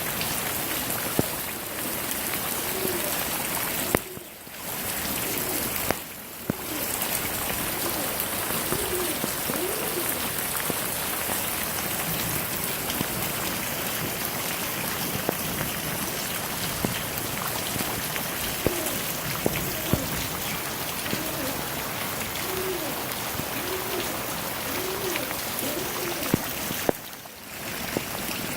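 Steady heavy rain falling, with scattered sharp drips and a faint, repeated short call in the background. The rain sound drops out briefly twice early on and once near the end.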